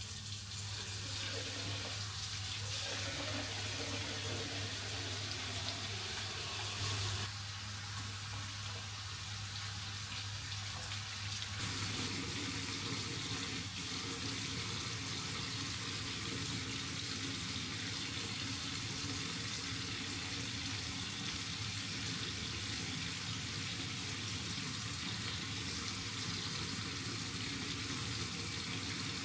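Water running steadily from a tap into a sink, its flow shifting slightly about seven and again about twelve seconds in.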